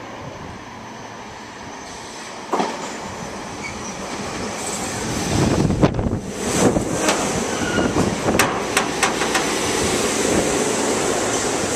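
SEPTA Silverliner IV electric multiple-unit train approaching and running past along the platform, growing louder from about five seconds in. A single sharp knock comes about two and a half seconds in, and a run of sharp clicks from the wheels follows in the second half, with a thin high whine.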